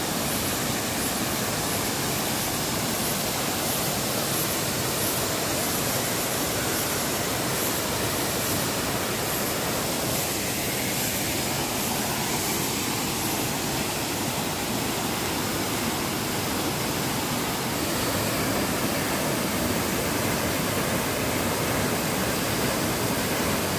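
A high waterfall pouring down a rock face and over boulders: a steady, unbroken rush of falling water.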